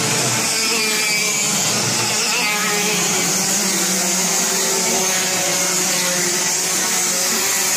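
Several racing karts' engines running as the pack passes through a corner, many overlapping engine tones shifting in pitch as they go by.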